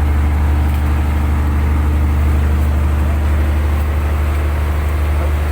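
Fishing boat's engine running steadily: an even, low drone.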